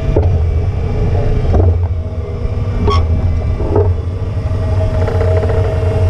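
Case IH Puma 240 tractor pulling a reversible plough through the soil, heard from on the plough frame: a loud, steady, heavy rumble with a few brief knocks and clanks from the plough working in the ground.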